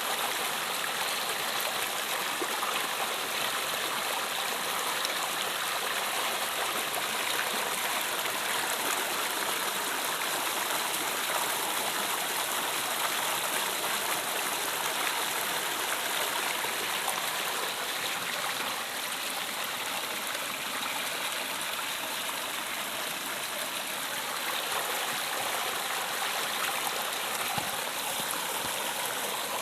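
River water flowing over rocks, a steady rushing and gurgling.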